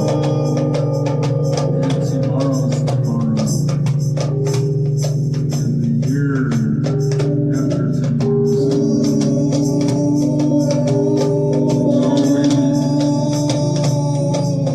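Experimental music: a steady low drone under held and wavering notes, with frequent percussion strokes throughout. Brighter, higher sounds join about halfway through.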